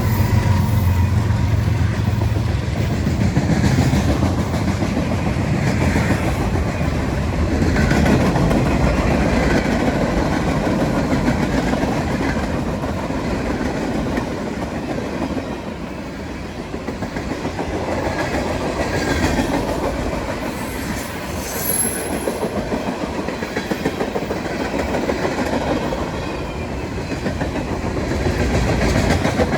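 Freight cars of a CSX freight train rolling past on the rails, a steady loud rumble of steel wheels on track with no horn.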